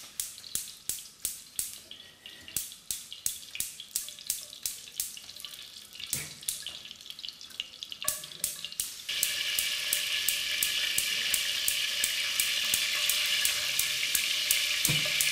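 Wooden spoon stirring in a metal pot on a gas hob, knocking against the pot about three times a second. About nine seconds in, a steady sizzle of food frying in hot oil starts and runs on under the stirring.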